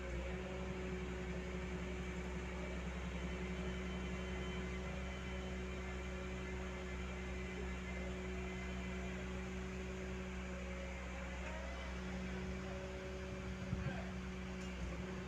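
Fire engine's diesel engine running with a steady low hum.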